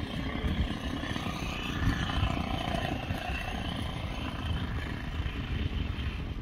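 Quarter-scale radio-control Tiger Moth biplane's engine running as the model comes in low to land, its pitch dipping and rising again before it fades near the end. Heavy wind rumble on the microphone from a gusty crosswind.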